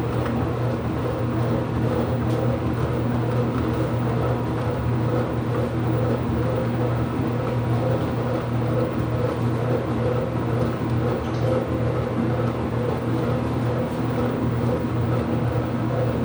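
IPSO washing machine running through its cycle: a steady mechanical hum with a strong low tone and fainter higher tones, holding an even level throughout.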